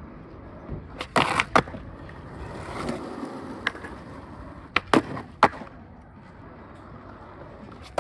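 Skateboard wheels rolling over a hard court surface, broken by sharp clacks of the board striking: three about a second in, a lighter tick near the middle, three more around five seconds in, and another at the end as the board comes down on a wooden box.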